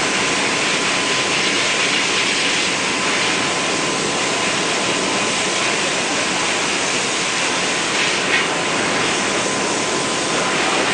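Milling spindle on a KUKA industrial robot arm running steadily: an even noise with a steady whine through it.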